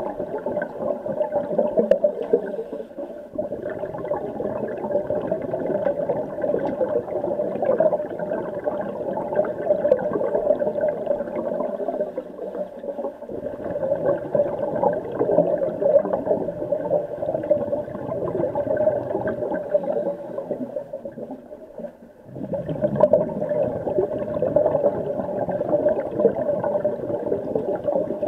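Underwater noise in a swimming pool: scuba regulator bubbles and water moving past the camera, a continuous rushing hiss that drops away briefly a few times.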